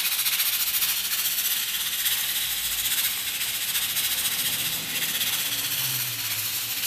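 Pressure cooker at pressure on a gas burner: a steady steam hiss from the weighted valve, with a fine, rapid rattle.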